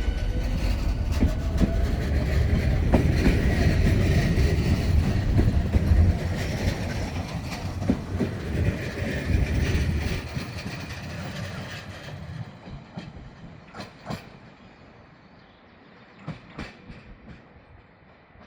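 Narrow-gauge electric train running and pulling away, a rising motor whine in the first two seconds over a heavy rumble and wheel clatter. The rumble fades from about ten seconds in, with a few sharp knocks near the end.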